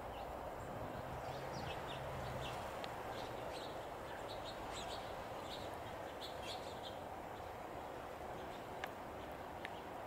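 Small birds chirping in quick, scattered calls over a steady low background rumble.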